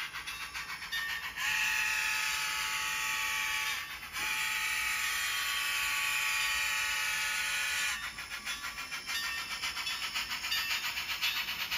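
Sound-equipped model Baldwin 2-8-0 steam locomotive blowing its whistle: two long chords, the first about two and a half seconds and dropping in pitch as it cuts off, the second nearly four seconds, over a steady rapid clicking of the running train.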